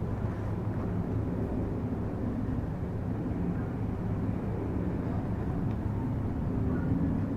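Toyota 2JZ-GE 3.0-litre inline-six DOHC VVT-i engine idling steadily.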